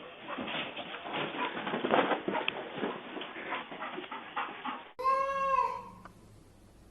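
Animal noises: a few seconds of scuffling and short cries with a dull, muffled sound, then after a cut one short pitched call that rises and falls.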